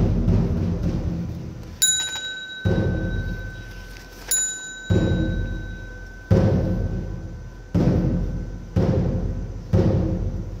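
Buddhist ritual percussion: deep, ringing strokes about every second and a half, each dying away before the next, with a small high-pitched bell struck twice, about two and four seconds in, its ring lingering.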